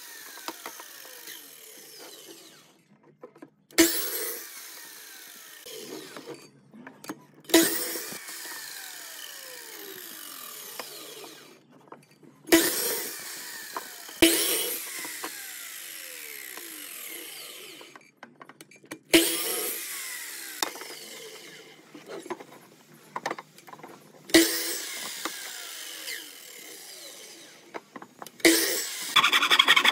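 Sliding compound miter saw cutting short pieces of wood, about six cuts. Each cut begins with a sudden loud burst, followed by the blade's falling whine as it winds down.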